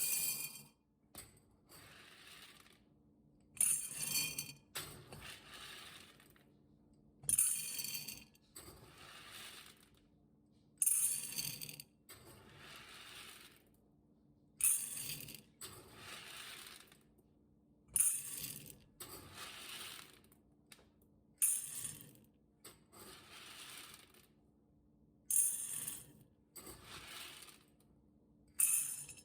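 Dry goods rattling as they are scooped and poured into a storage container. Each scoop is a sharp clatter of small hard pieces followed by a softer rush of pouring, repeated about every three and a half seconds.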